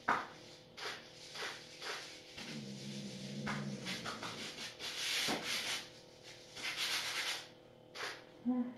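A hand rubbing and scratching at a blanket in repeated swishing strokes, loudest past the middle. A low steady tone lasting about a second comes in before the middle.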